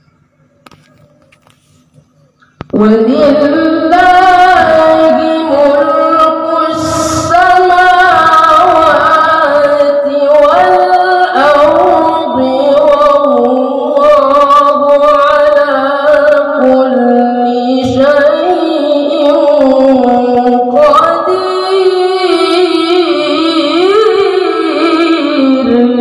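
A boy's voice reciting the Quran in melodic tilawah style into a handheld microphone. He comes in loud about two and a half seconds in, after a quiet pause, and holds long ornamented phrases with gliding, wavering pitch.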